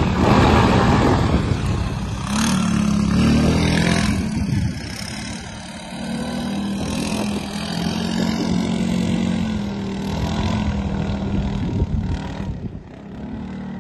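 Off-road buggy's engine revving as the buggy drives off across rough ground, loudest at the start and getting fainter as it moves away. The engine note rises and falls with the throttle.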